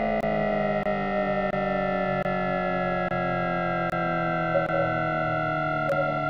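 Mitsubishi VVVF traction inverter and motors of a CSR electric train whining in several tones that slowly fall in pitch as the train slows, with short clicks recurring less than a second apart.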